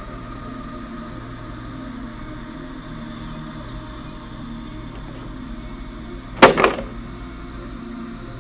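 A sharp double clack, about six and a half seconds in, as the door of a trap made of plastic cans snaps shut, over a steady low hum.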